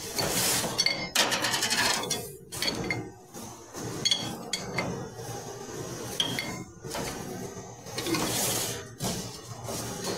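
Food-prep clatter at a stainless-steel counter: scattered clinks of a jar lid and utensils, with scraping and rustling as bread is handled, spread and cut.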